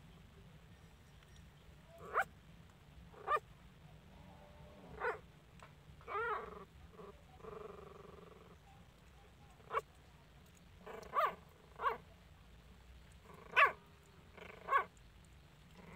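Young puppies whining and yelping in short high calls, about ten of them spaced a second or so apart, with one longer wavering whine about six seconds in.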